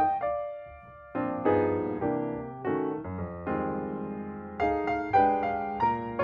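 Background piano music: chords struck and left to ring, with a brief lull about a second in before the playing resumes.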